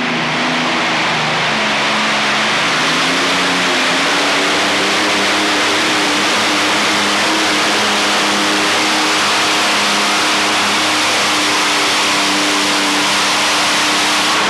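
Modified pulling tractor's engine running loud at high revs, its pitch climbing gradually over the first several seconds and then holding steady.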